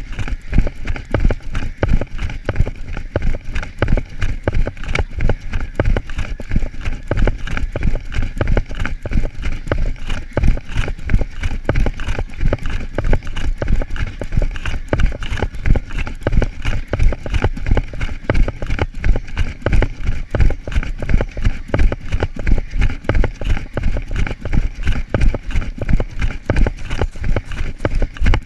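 A runner's footfalls on grass at race pace, a steady rhythm of thumps about three a second, jolting the body-worn camera at each stride.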